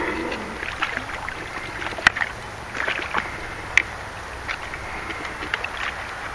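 Water splashing and sloshing at the bank as a hooked carp thrashes while it is drawn in to be landed, broken by a few sharp clicks.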